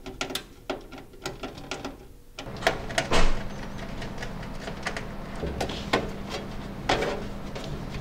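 Screwdriver driving motherboard screws into the case standoffs: a run of small metallic clicks and ticks as the screws turn and seat. A steady low hum sets in about two and a half seconds in.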